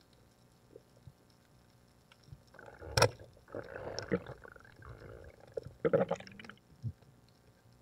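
Underwater water noise: swirling and bubbling against the camera housing as it moves. There is a sharp click about three seconds in and a second loud burst of bubbling about six seconds in.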